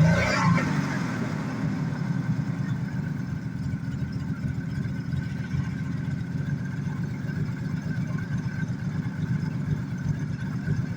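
1986 Jaguar XJ6's engine idling steadily, newly running again after standing unstarted for two years.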